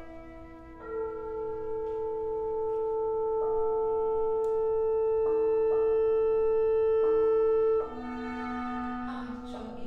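Chamber ensemble of flute, clarinet, violin, cello and voices playing slow contemporary music: long held notes, one of them slowly swelling louder until it cuts off suddenly about eight seconds in. Near the end, shorter wavering sung notes come in.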